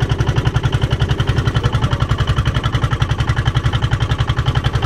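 Boat engine running steadily under way, a rapid regular thudding of about ten beats a second.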